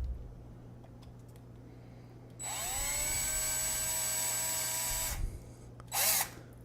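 Power drill with a 3.5 mm bit drilling into an iPhone 7. The motor spins up a couple of seconds in, rising in pitch and then running steadily for about three seconds before it stops. A dull knock at the start and a short scraping noise near the end.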